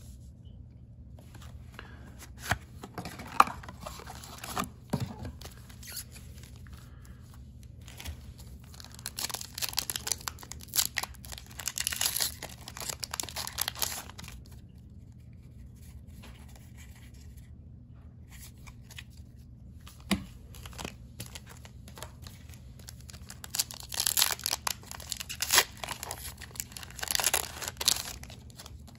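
Foil booster-pack wrapper of a Pokémon TCG Paldean Fates pack being torn open by hand and crinkling, in two long spells of tearing and rustling. There are a few light knocks near the start and a single one in the middle.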